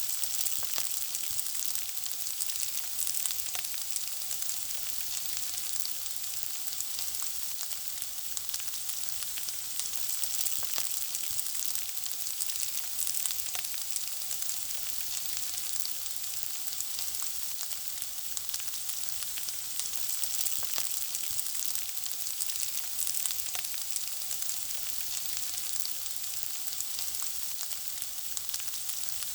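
Food frying: a steady high sizzle with many small pops and crackles throughout.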